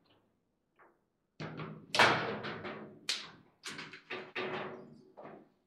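Foosball table: a run of about ten sharp knocks and bangs from the ball and the rods, each ringing briefly, the loudest about two seconds in, while a goal is scored.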